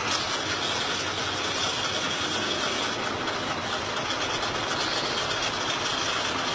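Steady engine and road noise of a moving vehicle, heard from inside its cabin: a continuous even rumble and hiss with no knocks or crashes.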